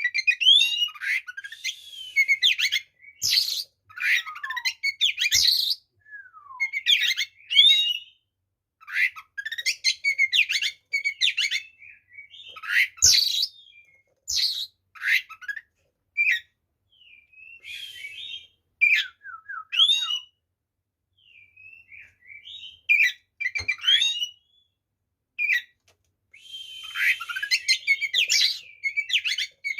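Oriental magpie-robin (kacer) singing its loud, aggressive 'fighting' song: rapid, varied phrases of clear whistles, chirps, falling glides and trills, in short bursts with brief pauses between them.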